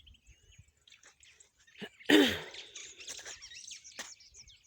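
A person coughs once, sharply, about two seconds in, with birds chirping faintly throughout.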